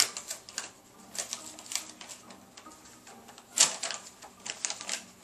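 Paper envelope being torn open and its paper handled: irregular crinkles and rustles, the loudest crackle about three and a half seconds in.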